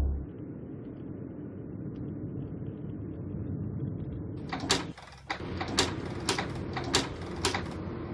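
Steady low car-cabin hum of the engine and road. From about halfway, a car's turn-signal indicator ticks sharply, roughly twice a second, six or seven ticks.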